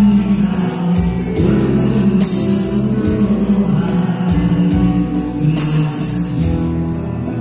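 A small live band playing: keyboard chords over acoustic guitar and bass, with a steady light percussion tick. A brief cymbal-like shimmer comes about two seconds in and again about six seconds in.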